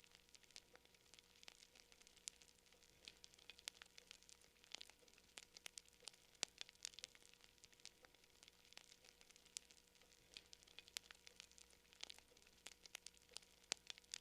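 Wood campfire crackling: a steady, irregular run of small pops and snaps, several a second, with an occasional louder crack.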